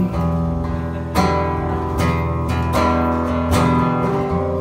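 Acoustic guitar playing chords, strummed about four times with each chord left ringing.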